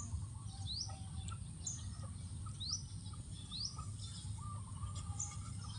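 A bird repeating a short, quick rising call every second or two, over a steady low rumble.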